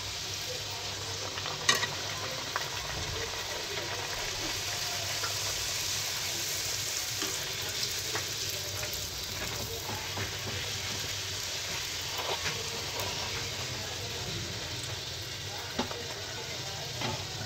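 Puris deep-frying in hot oil in a pan: a steady sizzle, with a few sharp metal clicks as a wire spider strainer knocks against the pan, the loudest about two seconds in.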